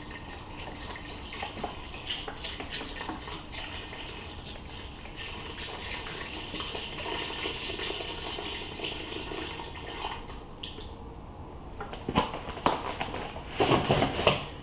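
Chicken broth pouring steadily from a carton into a large stainless-steel pot, splashing onto the liquid already inside. Near the end come several sharp knocks and clatters of handling, louder than the pour.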